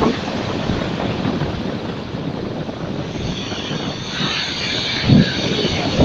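Black Sea surf breaking on a shingle beach: a steady rush of waves, with the hiss of water washing over the pebbles building from about halfway and a heavier wave surge a little after five seconds in.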